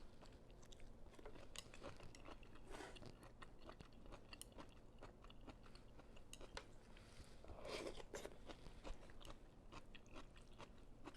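Faint chewing of vegetables from a bowl of vegetable pho, with soft crunches and many small mouth clicks, close to the microphone.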